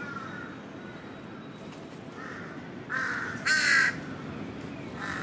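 Crows cawing: several short, harsh caws, the loudest about three and a half seconds in, over a steady low background hum.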